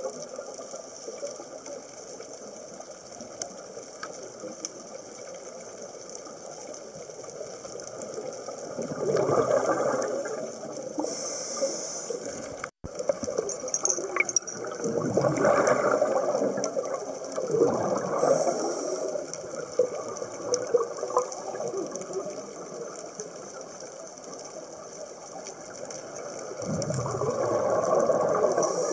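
Scuba diver's regulator breathing underwater: three swells of exhaled bubbles gurgling and rushing, each followed by a short high hiss of inhaling, over steady water noise.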